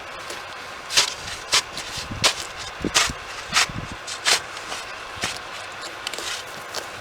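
Snow crunching and scraping in short, sharp strokes, about one every two-thirds of a second.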